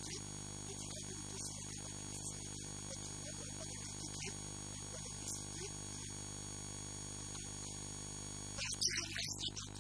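Steady electrical hum and buzz in the recording, made of many even tones at one constant level. Near the end a louder, busier sound breaks in over it.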